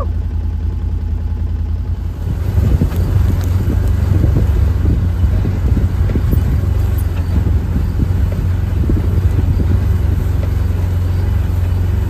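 UTV engine running with a steady low drone; it gets louder about two seconds in, with irregular knocks and rattles.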